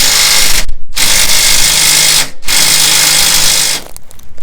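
Handheld power tool, drill-type, running in three bursts with a steady motor tone: a short one at the start, then two of about a second and a half each with brief stops between.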